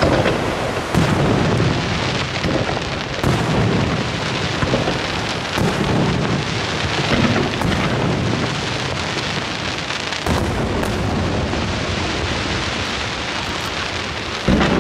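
Aerial firework shells bursting, with about six deep booms a few seconds apart, each rolling into an echoing rumble, over a continuous hiss.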